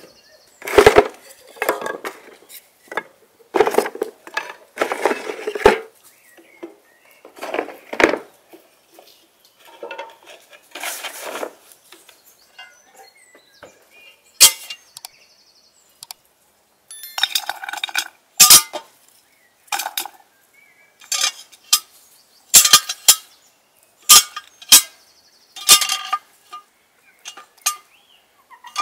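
Wooden blocks clattering against each other and a metal fire tray as they are stacked, then a run of sharp metallic clinks from a metal cooking pot and its wire handle.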